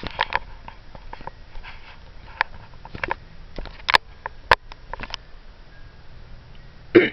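Scattered light clicks, taps and rustles of jewelry and a plastic bag being handled, with two sharp clinks about four and four and a half seconds in.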